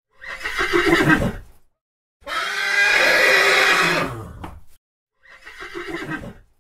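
Horse whinnying three times: a short call that drops in pitch, a longer whinny starting about two seconds in, and another short falling call near the end, with dead silence between the calls.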